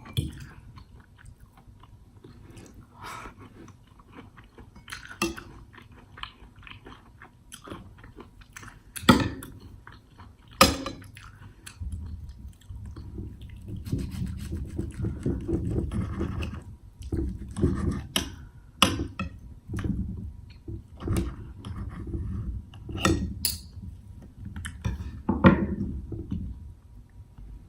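Close-miked chewing of food, with wet mouth clicks and smacks, denser and louder in the second half.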